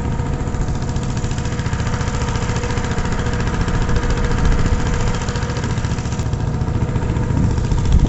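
A small engine running steadily at an even speed, with a fast regular firing pulse and no change in pitch.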